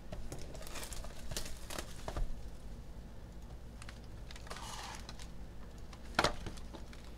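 Hands turning over and handling a sealed cardboard hobby box of trading cards: light taps and clicks of the cardboard, a soft rub, and one sharper knock about six seconds in.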